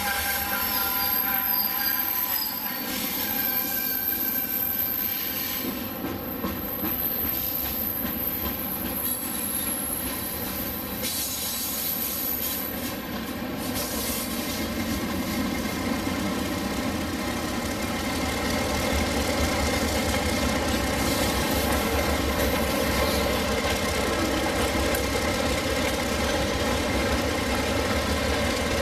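A freight train rolling past, with wheel squeal and a high whine in the first half. A diesel locomotive rumble grows stronger in the second half as the locomotives come by.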